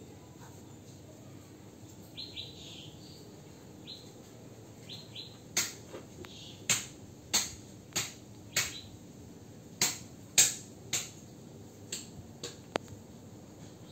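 A few short, high bird chirps, then about a dozen sharp clicks or knocks at irregular spacing over the last eight seconds.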